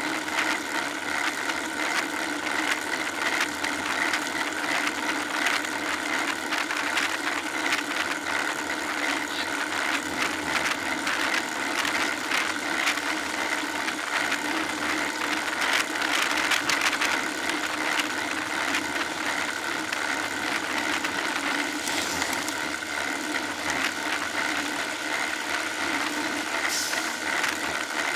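Steady riding noise from a road bike, picked up by a bike-mounted rear camera, with a continual light rattle.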